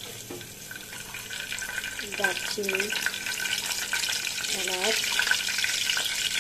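Whole spices (bay leaves, a cinnamon stick and cardamom pods) sizzling and crackling in hot oil in a frying pan, growing louder as more spices go in.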